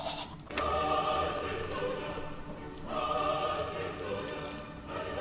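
Choral music: a choir singing long held chords, swelling in about half a second in and again about three seconds in.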